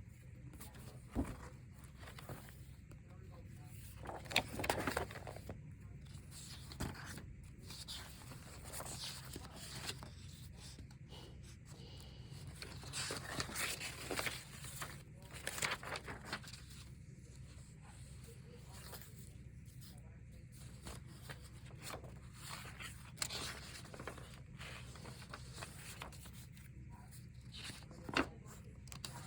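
Sheets of paper being handled and turned, with irregular rustles that come in clusters, the busiest around a few seconds in and around the middle, over a steady low room hum.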